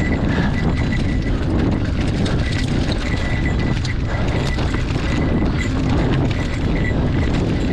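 Mountain bike rolling fast down a dry dirt trail: knobby tyres rumbling over dirt, roots and leaves, and the bike rattling with many small knocks, under wind buffeting the microphone. A high tone comes and goes throughout.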